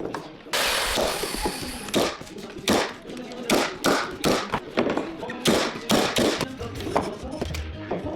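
Background music with a steady beat of about two strikes a second. A broad hissing burst comes in about half a second in and lasts about a second and a half.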